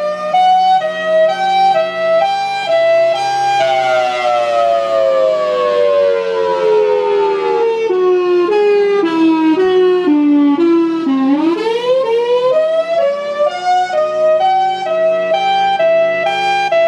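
Outdoor warning siren sounding a wail: the tone holds high, falls slowly for about seven seconds, then climbs back up quickly and holds high again, wavering in a regular pulse throughout.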